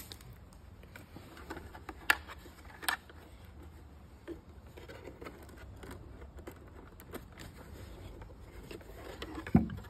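Hands handling a plastic mirror housing: a few sharp clicks and taps of plastic, spaced a second or more apart, over a low steady background hum.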